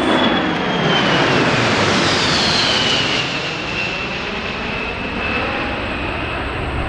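Boeing C-17 Globemaster III's four turbofan engines passing low: a broad jet rush with a high whine that falls in pitch about three seconds in, then eases slightly as the aircraft draws away.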